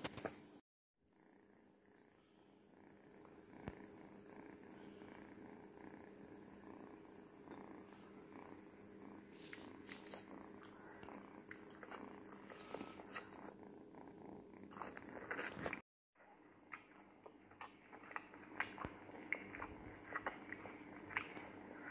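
Kitten purring steadily, with faint clicks and taps scattered over it.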